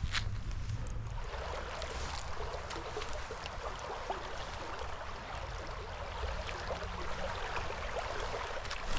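Creek water running steadily over riffles, growing louder about a second in.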